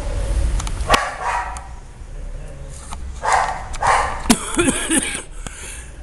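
A dog barking several times, with a few short rising-and-falling yelps about four to five seconds in.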